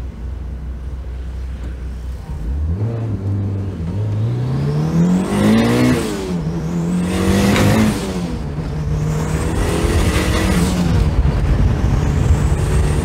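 Mitsubishi Lancer Evolution III's turbocharged 4G63 four-cylinder, heard from the cabin, accelerating hard. The engine note climbs steeply and drops back at two quick upshifts, then settles into a steady pull. A high turbo whistle climbs with each pull, and a brief rush of hiss comes at each shift.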